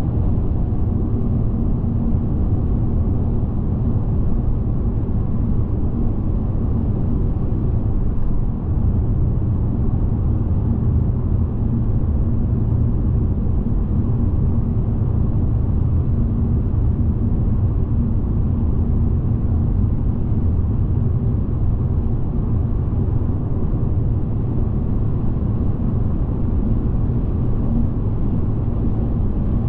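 Steady low rumble of a car driving at motorway speed: engine and tyre noise, unchanging throughout.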